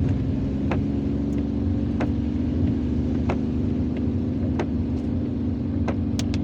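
Car engine running with a steady hum, heard inside the cabin while driving, and a sharp click about every 1.3 seconds, like the sweep of old, worn windshield wipers in heavy rain.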